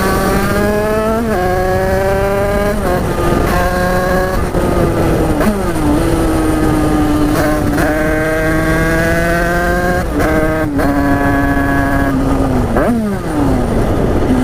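Derbi two-stroke dirt bike with a big-bore kit accelerating hard through the gears: the engine note climbs steadily, drops sharply at each upshift, then climbs again. Near the end the pitch falls quickly as the rider closes the throttle.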